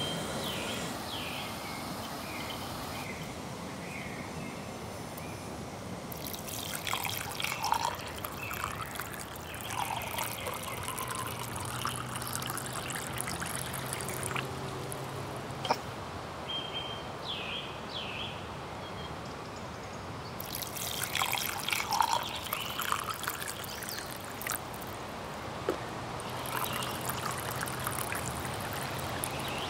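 Water being poured from a stainless steel camping pot into a glass French press, and coffee being poured into a ceramic mug: liquid splashing and trickling in several separate pours.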